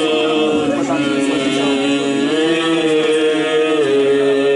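Church choir singing Orthodox liturgical chant a cappella, holding long notes that step up and down in pitch.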